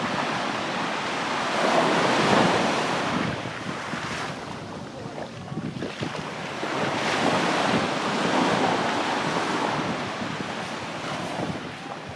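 Sea waves breaking and washing up the shore, swelling twice and easing off between, with wind rumbling on the microphone.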